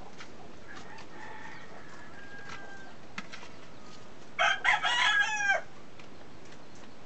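A rooster crowing once, about four and a half seconds in, a call of about a second that ends on a falling note, after fainter calls a second or two earlier.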